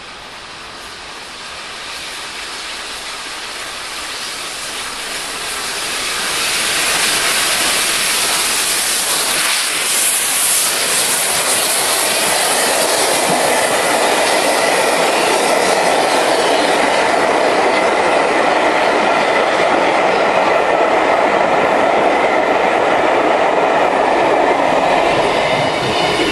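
Peppercorn A1 Pacific steam locomotive 60163 Tornado and its express train passing at speed. The rush of the train grows louder over the first seven seconds or so, then stays loud and steady as the carriages go by, with wheels clattering over the rail joints.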